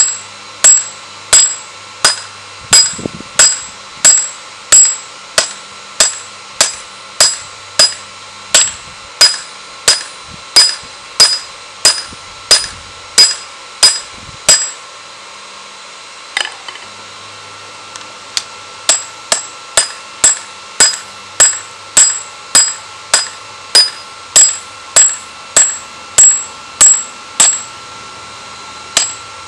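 Ball-peen hammer forging a steel spear-head blank on a round steel-block anvil: steady blows about one and a half per second, each with a bright metallic ring. About halfway through, the blows stop for about four seconds, then resume a little faster on the red-hot metal.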